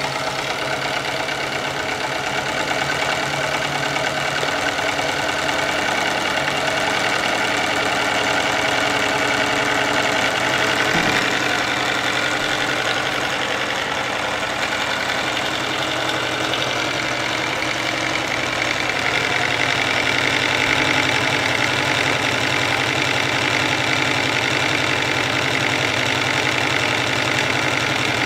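Small homemade twin-cylinder, double-acting brass steam engine running fast and steadily on live steam. Its pistons and crank make a rapid, even rattle.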